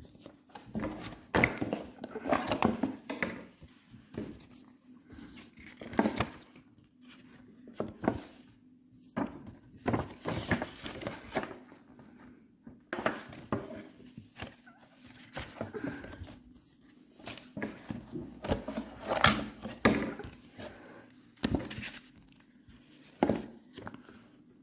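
Close-range handling of a mobile phone and its cardboard and plastic packaging: irregular clicks, knocks and rustling crinkles, over a faint steady low hum.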